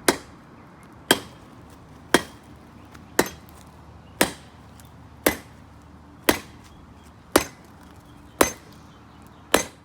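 Hand hammer striking a forged sword blade on the anvil: ten evenly spaced blows about one a second, each with a short metallic ring, flattening the blade.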